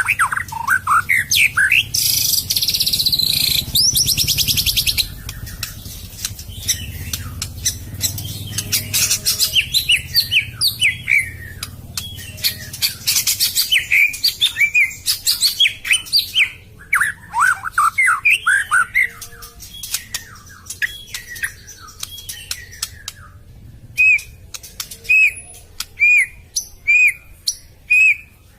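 White-rumped shama (murai batu) singing a varied song of fast whistled phrases, with a harsh rattling passage a few seconds in, ending in a string of single clear whistled notes about one a second.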